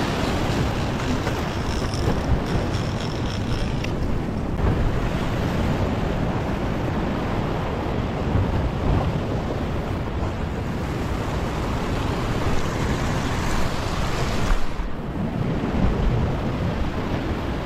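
Sea surf breaking and washing over a rock ledge in a steady rush, with wind buffeting the microphone.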